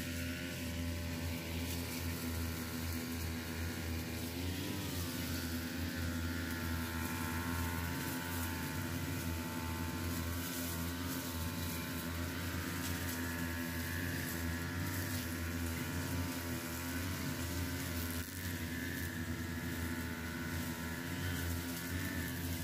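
Two-stroke backpack brush cutters running steadily as they cut grass, a continuous engine drone whose pitch wavers slightly up and down from about four seconds in.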